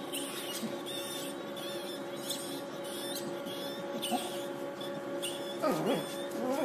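A mouse caught in a small cage trap squeaking in short, high chirps, several times, over a steady background hum. Near the end a dog whines, its pitch rising and falling.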